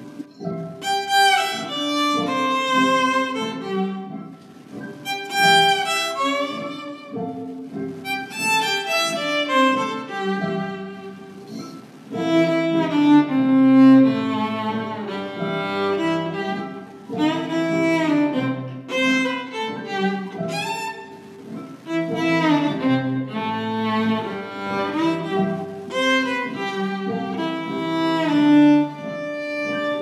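Violin played with the bow: a melody in short phrases, with several notes often sounding together and brief breaks between phrases.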